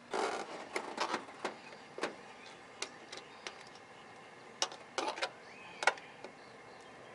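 Scattered light clicks and taps, with a short rustle just after the start: hands working the plastic fender flare and its clip nut at the pickup's wheel well.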